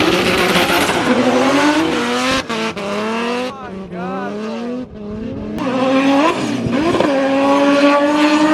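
Drift car's engine revving up and down as its tyres squeal through a slide. It eases off around the middle, then climbs back and holds a steady high rev near the end.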